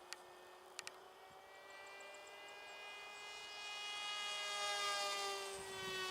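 Electric motor and propeller of an Opterra 2 m RC flying wing whining in flight: a steady pitched hum that grows louder over the first five seconds, then eases slightly lower in pitch as the model passes. A few short clicks in the first second.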